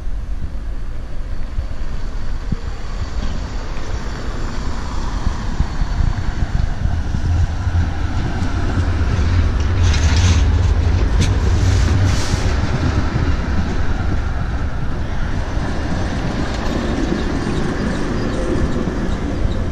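Schindler Waggon Be 4/6 tram running along street track: a low rumble that grows as it comes closer, peaks as it passes close about halfway through with a few sharp clicks from the wheels, then eases as it moves away.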